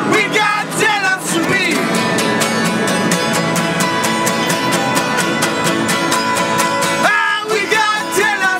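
Two acoustic guitars strummed hard in a fast, steady rhythm, with a male voice singing over them at the start and again near the end.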